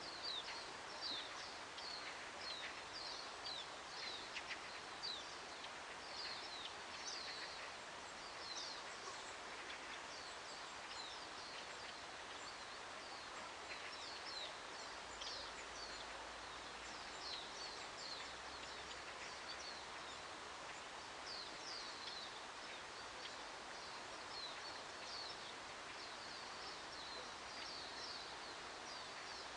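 Small songbirds chirping in a summer morning chorus: many short, high notes, mostly sliding down in pitch, come thick in the first half and keep on more sparsely, over a steady soft outdoor hiss.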